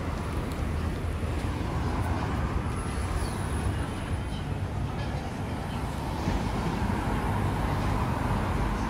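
City street traffic: a steady rumble of passing vehicles.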